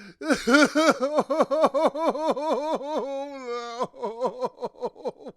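A man sobbing: a quick run of voiced, pitched sobs at about five a second, breaking into a brief held wail a little past the middle, then shorter, fainter sobs.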